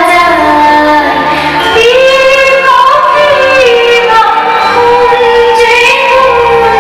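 A song playing loudly: a female singing voice carrying a melody over instrumental backing.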